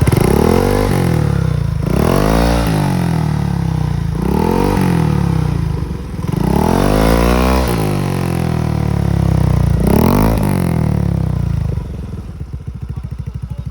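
Yamaha Mio MXi 125 scooter's single-cylinder four-stroke engine breathing through an aftermarket E-Tech exhaust pipe. The throttle is blipped about five times, the pitch rising and falling back each time, and the engine settles to a steady idle near the end.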